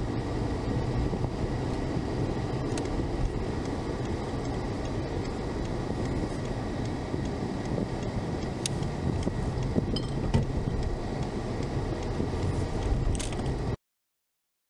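Steady road and engine noise of a car driving, heard from inside the cabin, with a few faint ticks. It cuts off suddenly near the end.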